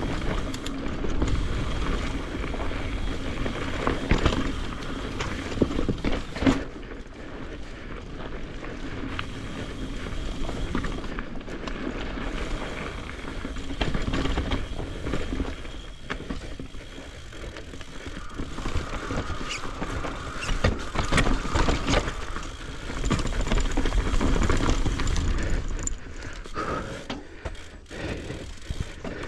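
Mountain bike riding fast down a rough dirt trail: steady tyre and wind noise on the action-camera microphone, with sharp knocks and rattles of the bike over bumps, loudest about four, five and a half, six and a half and twenty-one seconds in.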